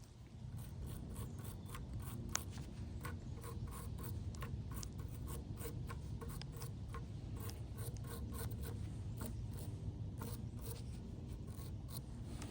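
A small brush scrubbing the darkened tip of a gas water heater's thermocouple clean, in quick short strokes about three or four a second, over a low steady hum.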